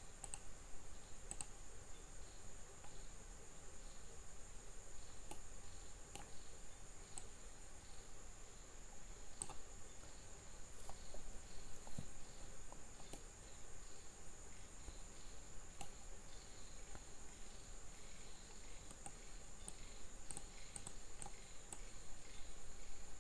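Faint, scattered computer mouse and keyboard clicks at irregular moments over a steady high-pitched drone and low room hum.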